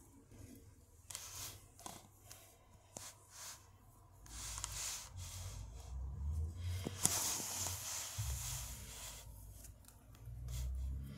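Scratchy rustling and rubbing as a hand strokes a dwarf hamster's fur and brushes the carpet right at the microphone. The noise is light and patchy at first, then becomes a fuller hiss with low rumbling from about four seconds in, with one sharp click near seven seconds.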